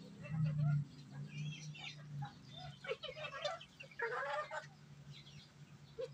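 Bantam chickens clucking, several birds giving short, scattered calls. A steady low hum runs underneath, loudest in the first two seconds.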